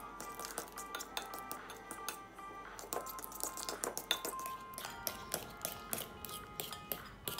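Background music with many quick clicks of a fork striking the inside of a bowl while mashing bananas.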